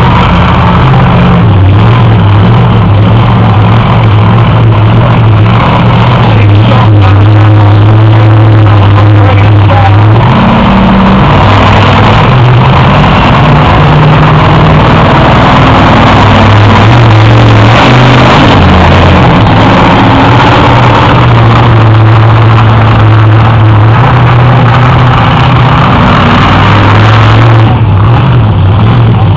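Monster truck engine running very loud and being revved. Its pitch steps up sharply about a third of the way in and drops low a little past halfway, then settles back.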